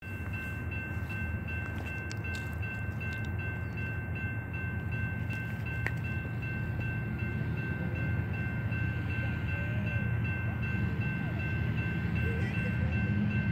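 Distant diesel freight locomotives approaching: a low rumble that grows slowly louder, with two faint steady high tones over it.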